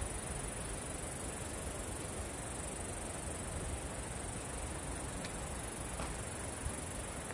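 A steady, high-pitched insect chorus that holds an even level throughout, over a low, even rushing noise.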